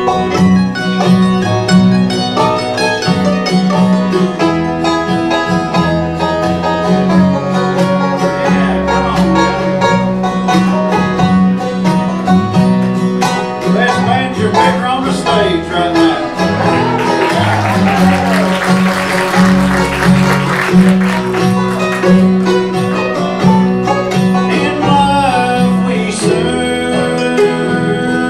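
Bluegrass band playing an instrumental break, with banjo and guitar picking over a steady bass.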